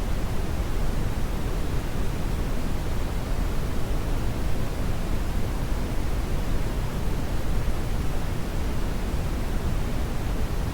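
Brown noise: a steady, even rumbling hiss, strongest in the low end and falling off toward the highs, with no changes.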